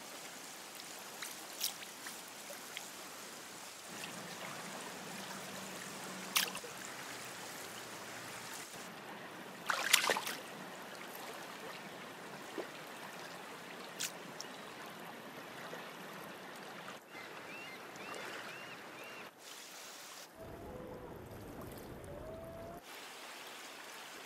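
Running river water, a steady rushing, broken by a few sudden sharp sounds, the loudest about ten seconds in.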